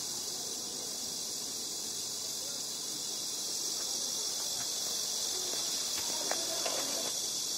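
A steady, high-pitched chorus of insects chirring in summer background ambience, with a few faint taps about six seconds in.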